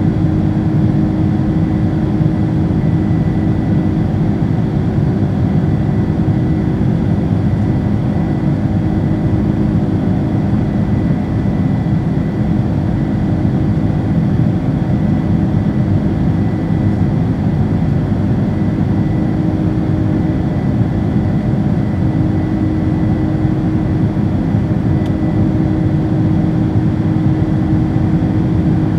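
Cabin sound of a Boeing 767-300ER climbing after takeoff, heard from a seat over the wing: its General Electric CF6-80C2 turbofans give a steady deep roar with a low hum and a thin high whine.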